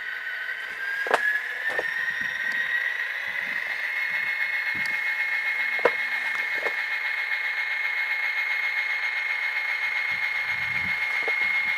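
Tsunami sound decoder in an HO-scale Kato GP35 playing EMD 567D diesel prime-mover sound through the model's small speaker, revving up about a second in and then holding a steady, higher pitch. A few sharp clicks sound over it.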